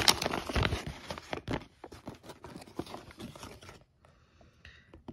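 Folded paper instruction manual being unfolded by hand, with crisp paper rustling and crackling that is loudest in the first couple of seconds, then fades to a few soft rustles and near quiet about four seconds in.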